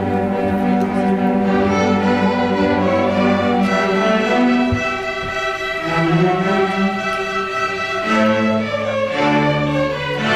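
A school orchestra's strings, violins over cellos, playing slow held chords that change every few seconds.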